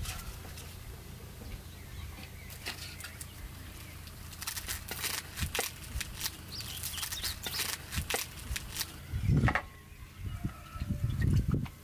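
Dry, papery onion skin crackling and rustling as it is cut and peeled off with a knife, in quick bursts of crackles. A dull knock comes about nine seconds in.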